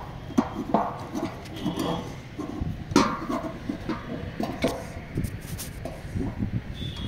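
Irregular light clicks and knocks of a satellite dish's painted steel mounting bracket and fittings being handled and fitted together by hand, with one sharper knock about three seconds in.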